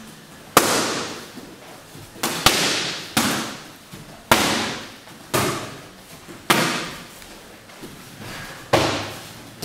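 Boxing gloves punching leather focus mitts: sharp slapping smacks, about eight of them at roughly one a second, with a quick double near the middle. Each one echoes briefly.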